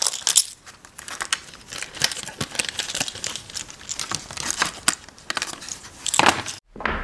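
Plastic toy packaging being handled and crinkled, with many small crackles and light clicks; it cuts off abruptly near the end.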